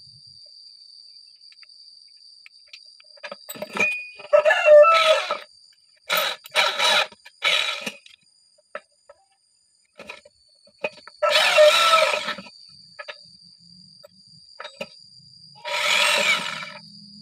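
Corded electric hand drill run in a series of short trigger bursts, the longest about a second, each with a whining pitched note.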